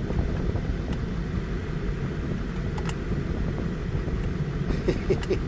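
Steady low rumble inside a car, with a few sharp clicks about one and three seconds in.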